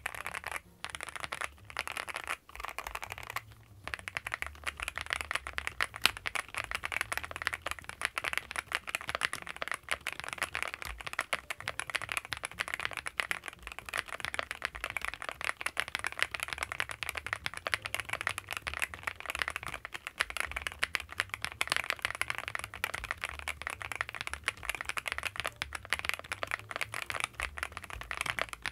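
Fast, continuous typing on a Cupid-65 gasket-mount custom mechanical keyboard: a dense run of keystroke clicks and clacks, with a brief pause about three and a half seconds in.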